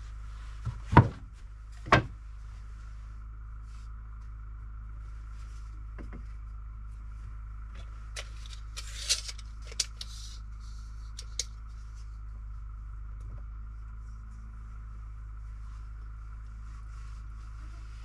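Cut wooden boards handled and set down on a plywood workbench: two sharp wooden knocks about one and two seconds in, then scattered lighter taps and clicks. A steady low hum runs underneath.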